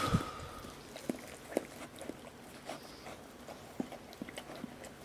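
Mother dog licking her newborn puppies: faint, scattered wet clicks and smacks. A louder sound fades out at the very start.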